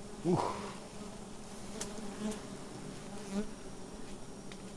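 Swarm of giant honeybees (Apis dorsata) buzzing steadily around their open wild comb, with one brief louder rising sweep about a third of a second in.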